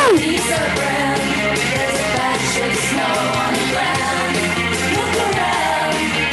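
Rock music with singing and a steady beat, played for a workout class, with a short rising-and-falling vocal whoop at the very start.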